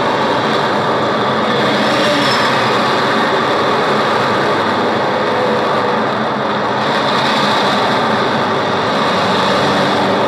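Steady, loud rushing noise with no distinct events, heard through a soundtrack degraded by repeated re-recording from tape to tape. A faint high whistle rises and falls about two seconds in.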